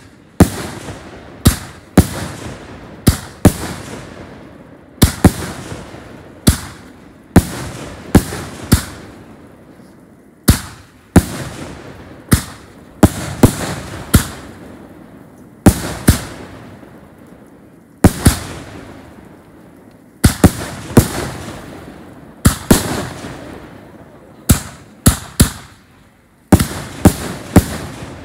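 Death Punch consumer firework cake firing a long volley of aerial shots: sharp bangs roughly one a second, sometimes in quick pairs, each trailing off in echo.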